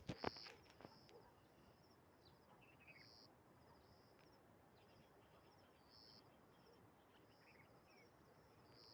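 Faint insects chirping outdoors, a pulsed high chirp repeating every second or so, with a few short bird chirps, and a couple of soft clicks right at the start.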